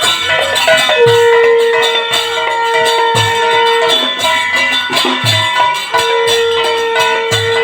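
Background music with a steady beat: a low drum hit about every two seconds under quick rattling percussion, with long held notes over it.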